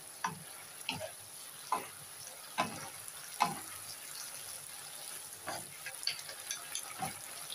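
A wooden spatula and a metal fork tossing and stirring spaghetti in a non-stick frying pan, with irregular knocks and scrapes of the utensils against the pan over a faint steady hiss.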